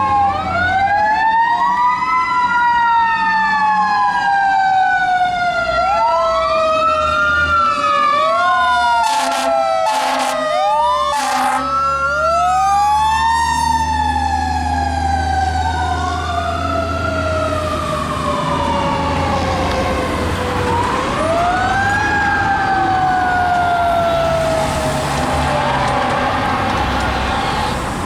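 Fire engine siren wailing in repeated sweeps, each rising quickly and falling away slowly, with three short blasts about nine to eleven seconds in. The truck's engine runs underneath.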